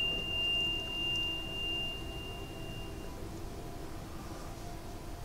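Soft meditation background music: a high pure ringing tone that swells slowly in level and fades out about three seconds in, over a low sustained drone.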